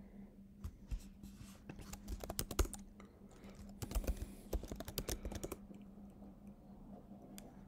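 Typing on a computer keyboard: a run of key clicks between about half a second and five and a half seconds in, then quieter, over a faint steady low hum.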